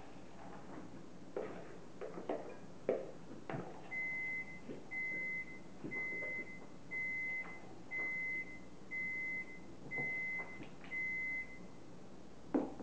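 An electronic beeper sounds eight times at one steady pitch, about once a second, while spoons tap and scrape against plastic mixing bowls, with a sharp clack near the end.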